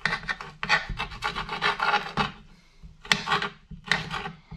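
Kitchen knife chopping chorizo sausage on a cutting board: quick runs of scraping, tapping strokes, with a short pause about halfway through.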